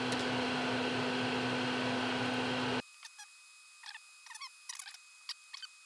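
A steady hum with a low tone, which cuts off abruptly about three seconds in. After it come faint, scattered light clicks and ticks of small wire leads and components being handled in an amplifier chassis.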